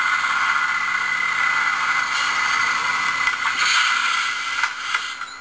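Steady microphone hiss with light rustling and a few faint scrapes.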